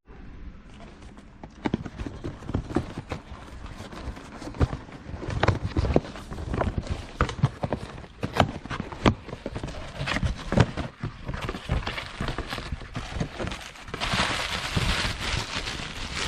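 A cardboard shipping box being handled and opened by hand: irregular knocks and taps, then a dense rustling of packaging over the last couple of seconds.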